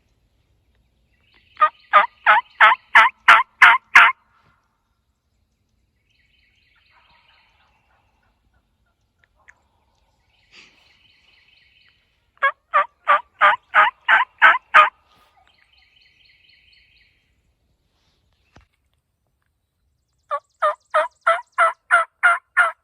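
Turkey call sounding a hen's yelp: three loud runs of about eight evenly spaced yelps each, several seconds apart, used to call in a gobbler.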